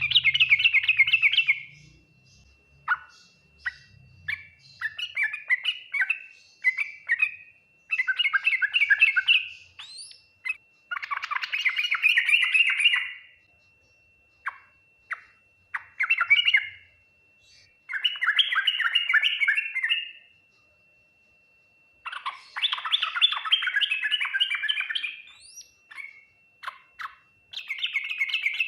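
Yellow-vented bulbul (trucukan) singing its full, lively song: loud bursts of fast bubbling, chattering notes one to three seconds long, separated by short pauses and a few single sharp notes. A faint steady high whine runs underneath.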